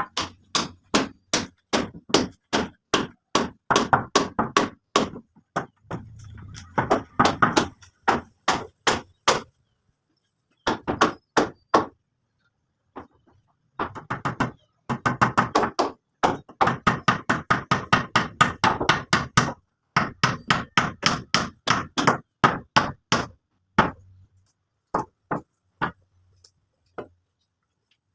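Repeated hammer blows, about three a second, in runs broken by short pauses.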